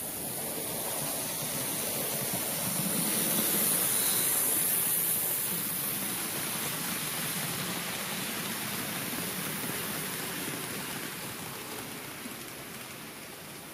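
Model train wheels rolling over the track as the train passes close, swelling to a peak a few seconds in and fading away, over a steady hiss.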